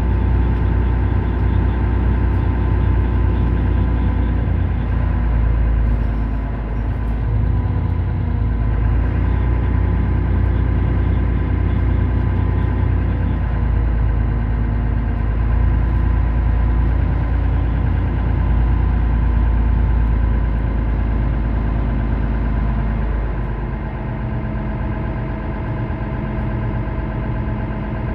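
Diesel engine of a Mercedes-Benz Citaro O530 city bus idling steadily while the bus stands still. About three quarters of the way through, the sound drops slightly and settles into a different steady hum.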